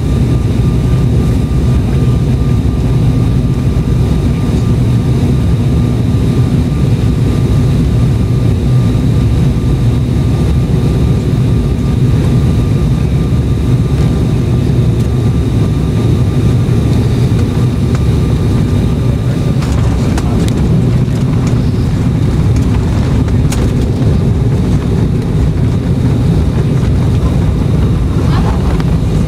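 Steady rumble of an Embraer 195 jet airliner's GE CF34 turbofans and rushing air, heard from inside the cabin, as it comes in to land. A faint steady whine stops about two-thirds of the way through, as the jet comes down onto the runway and rolls out.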